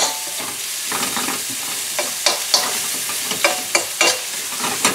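Sliced onions sizzling in hot oil in a stainless steel skillet while a spatula stirs them, with a steady hiss and repeated scrapes and taps of the spatula against the pan.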